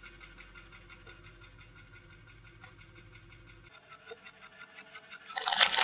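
A short, loud crackling crunch near the end: roasted chestnuts cracking under a rolling car tyre. Before it there is only a faint, low background.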